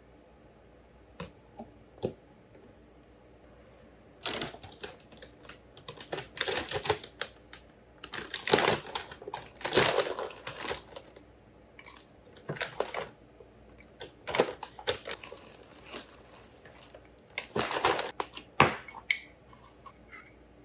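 Irregular clicks, taps and short rustling bursts of objects being handled at close range.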